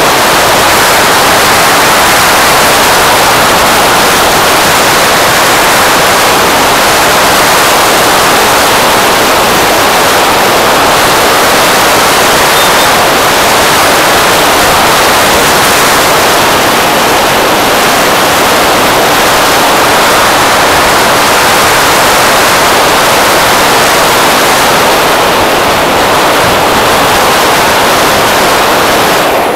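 Loud, steady wind rush over the microphone of a camera on a moving scooter, with no distinct engine note standing out.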